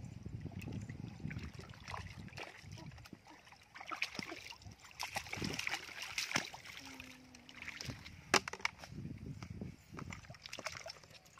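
Legs wading through shallow muddy water, sloshing and splashing irregularly, with a sharp knock about eight seconds in.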